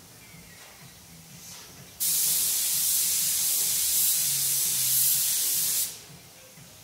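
Compressed-air spray gun hissing in one continuous burst of about four seconds, starting and stopping abruptly.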